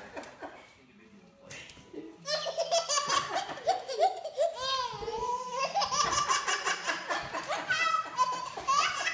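Baby laughing in a long run of repeated peals that begins about two seconds in.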